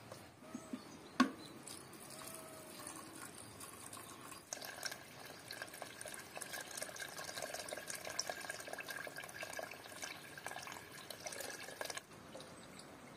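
A wooden spatula knocking against an aluminium cooking pot, one sharp knock about a second in. Then water poured from a kettle into the stew in the pot, a steady splashing stream for about seven seconds that stops abruptly.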